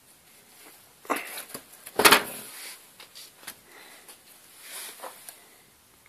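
Handling clatter of parts on a washing machine's metal drum housing: a knock about a second in, a louder clattering knock about two seconds in, then a few faint ticks and scrapes.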